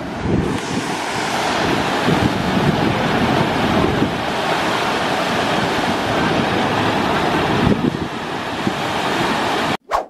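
Steady rush of white water at Elbow Falls, with wind rumbling on the microphone. It cuts off abruptly near the end.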